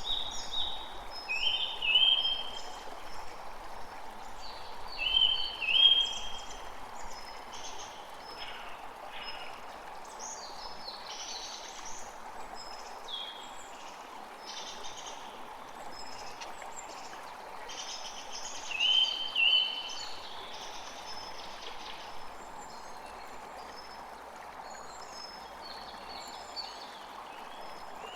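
Several birds calling over a steady wind hiss; the loudest calls are short paired notes about 2, 6 and 19 seconds in.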